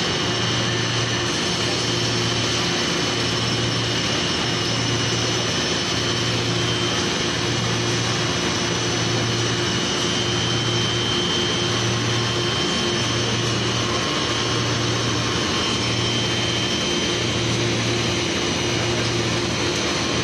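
PVC foam board extrusion line running: steady machine noise with high whining tones over it and a low hum that pulses evenly, about once every second and a half.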